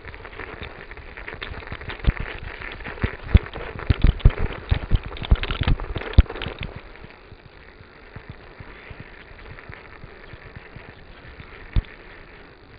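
Bicycle riding over a snow-covered road, heard from a bike-mounted camera: a steady rushing noise of tyres and air, with the mount and bike rattling and knocking over bumps. The knocks come in a dense run between about two and six and a half seconds in, and one more sharp knock comes near the end.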